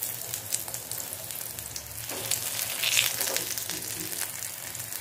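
Potato tikkis coated in cornflour shallow-frying in hot refined oil in a pan, a steady sizzle with fine crackling.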